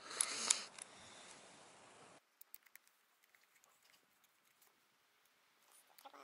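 Faint clicks and taps from handling a Beretta M9A3 pistol and its rubberized grip panel as it is pressed onto the frame, then scattered light ticks of a flathead screwdriver at the grip screws.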